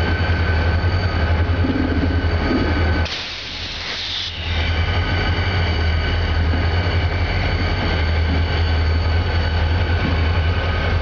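Freight train moving slowly past: a diesel locomotive's steady low engine drone as it passes, followed by tank cars rolling by. A short hiss lasts about a second, starting about three seconds in.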